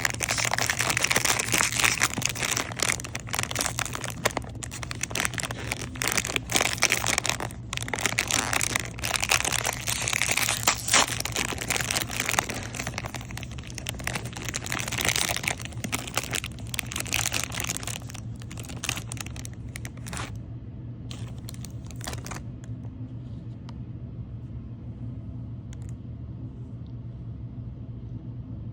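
Cookie package wrapper crinkling and rustling as it is handled and torn open. The crinkling stops about twenty seconds in, with a few last crinkles shortly after, leaving a steady low hum.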